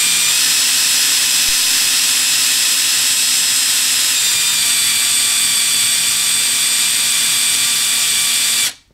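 Small handheld electric drill with a fine twist bit running at high speed as it drills into a floppy drive: a loud, steady high whine whose pitch drops slightly about four seconds in, cutting off suddenly just before the end.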